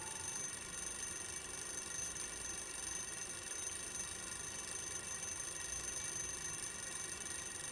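A steady, high-pitched ringing tone over a faint hiss, unbroken and alarm-like.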